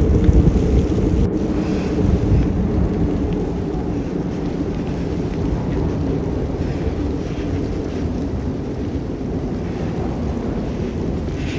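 Thunder rumbling low and long during a snowstorm, loudest about the first second and easing off a little.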